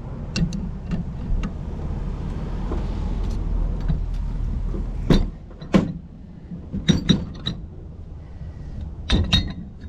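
Sharp metallic clinks and knocks of hand tools on plumbing fittings, scattered through and bunched near the end, over a low steady rumble that fades about halfway through.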